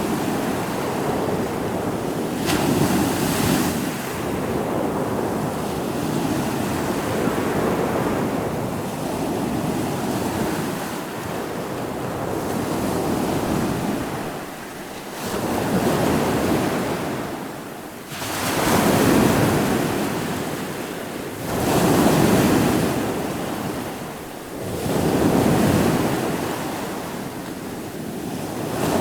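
Ocean waves breaking and washing in, the surf swelling and ebbing in repeated surges about every three seconds, with wind on the microphone.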